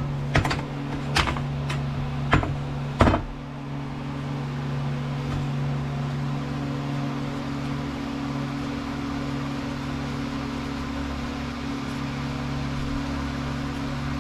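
A metal pole-saw drive-shaft tube being handled and wiped with a shop towel: several sharp knocks and taps in the first three seconds, over a steady mechanical hum that runs throughout.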